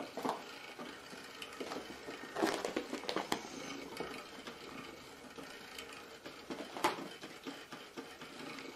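Faint scattered taps and rustles of a cat leaping and pouncing on a carpet, with a few brief louder knocks.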